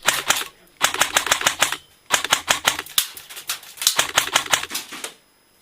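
An airsoft rifle firing full-auto in four short bursts, each a rapid run of sharp cracks at about ten shots a second.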